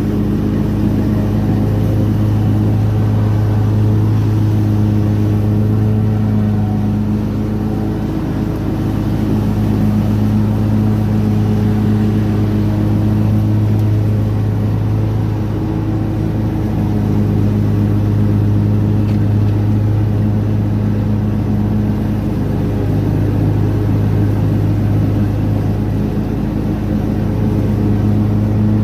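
Vehicle engine and road noise while driving: a steady, loud low drone with a constant pitch, easing off slightly a couple of times.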